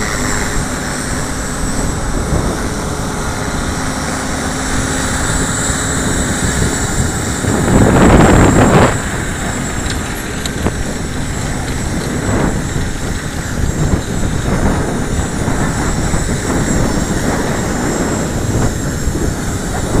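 Align T-Rex 450 Pro flybarless RC helicopter's electric motor and rotor whining steadily while hovering, with strong wind buffeting the microphone; a louder rush of wind lasts about a second roughly eight seconds in.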